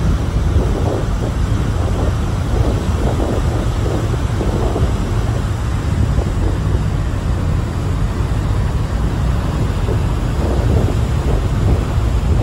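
Wind buffeting the microphone on the open deck of a ferry under way: a steady low rushing rumble that flutters with the gusts, with no alarm or other tone standing out.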